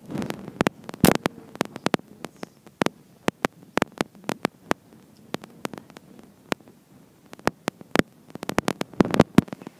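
Scattered sharp clicks and crackles at irregular intervals, with a brief rustle at the start and a dense run of clicks near the end. This is handling noise from fingers shifting on a handheld recording device as it is moved.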